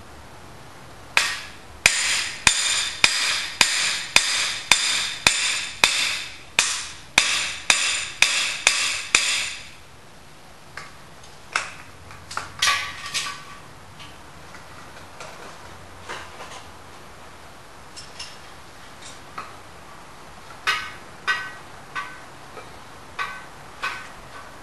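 Hammer blows on a cam bearing installation tool, driving a bimetal cam bearing into a Ford 428 FE engine block: a run of about fifteen ringing metallic strikes, roughly two a second, stopping after about eight seconds. Scattered lighter metallic clinks and taps follow.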